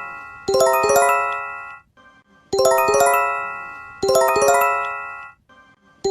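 Japanese-style emergency alert chime: a rapid cascade of bell-like notes that rings out and fades, repeated in pairs about a second and a half apart with a short gap between pairs. A new chime starts near the end.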